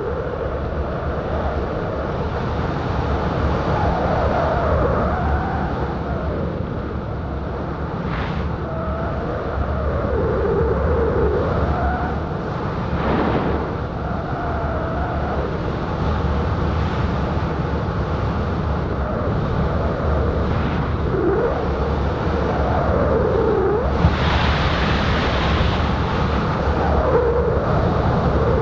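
Steady heavy wind rush buffeting the action camera's microphone at 55 to 75 km/h during a speedriding run: skiing fast under a small speed wing and then flying off the slope. A wavering whistle runs through it, and the hiss grows brighter about three-quarters of the way through.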